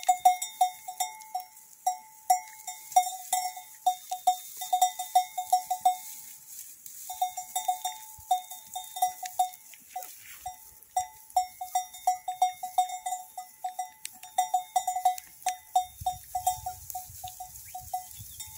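Metal bells hung on a flock of sheep clanking as the animals move and graze: short single-pitched strikes in quick irregular clusters, with a brief pause about six seconds in.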